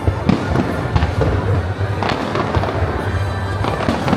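Aerial fireworks bursting, several sharp reports about a second apart over a continuous rumble.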